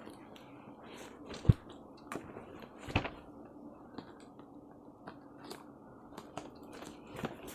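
Parcel packaging being opened by hand: scattered rustling, crinkling and small clicks, with two sharper snaps about a second and a half and three seconds in.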